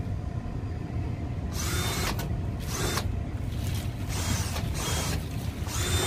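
A cordless drill or screw gun runs in several short spurts of a second or less, with a faint whine, as screws are driven at a rooftop HVAC unit's panel. A steady low rumble sits underneath.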